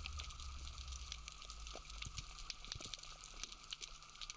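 Faint underwater ambience on a rocky seabed: scattered soft clicks and crackles over a low, steady hum.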